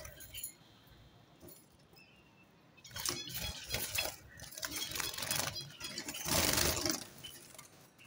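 Java sparrows fluttering about a wire cage: a busy run of wing flaps and light clinks and rattles on the cage wire, starting about three seconds in and loudest near the end.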